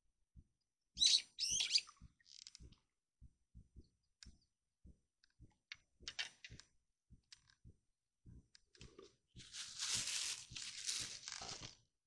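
A small bird chirping, a quick run of sharp high notes about a second in. Faint low knocks are scattered throughout, and near the end comes a noisy burst lasting about two seconds.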